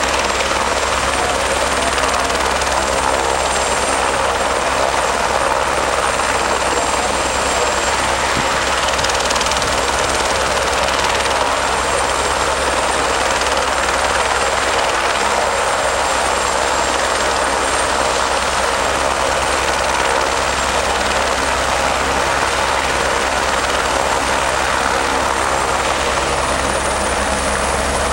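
Eurocopter AS350 B3+ Écureuil helicopter running on the ground with its main rotor turning: a steady mix of rotor noise and the whine of its single Arriel 2B1 turboshaft. The high whine creeps up a little in pitch near the end.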